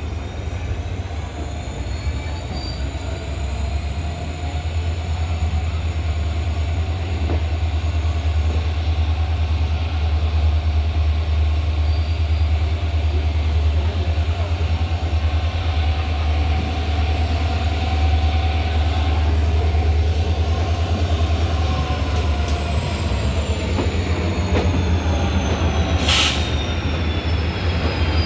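Train running on rails: a steady low rumble with thin, high wheel-squeal tones above it. The squeal tones slide down in pitch in the last few seconds, and a short hiss cuts in near the end.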